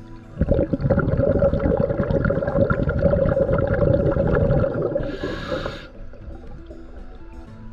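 Scuba diver breathing out through a regulator underwater: a loud burst of bubbling lasting about five seconds, then a short hiss of breathing in through the regulator.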